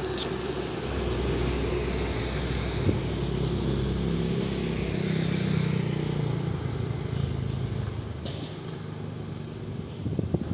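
Road traffic: the low hum of a heavy diesel dump truck driving away and fading, with a motorcycle engine passing about halfway through.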